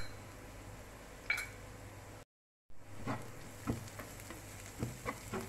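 Chopped onions, ginger and garlic frying in oil in a nonstick pan with a faint steady sizzle. In the second half a spatula stirs the masala, making several short scraping strokes. The sound cuts out for a moment about two seconds in.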